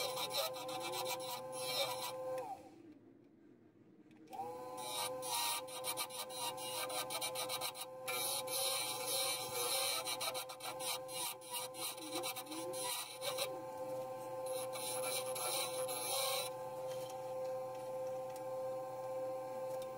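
Wood lathe running with a steady motor whine while a hand-held turning chisel cuts the spinning wooden goblet stem, the cut heard as a dense scraping hiss. Both drop out for about two seconds near the start, then carry on.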